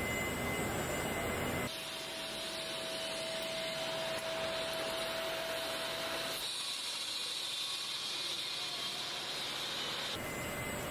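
Car assembly line noise: a steady hiss of air and machinery that changes abruptly three times, with a steady whine in the middle stretch.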